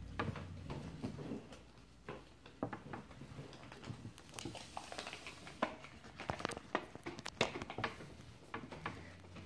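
Irregular light clicks and ticks of small plastic toy parts being twisted and snapped into position by hand, coming faster in the second half.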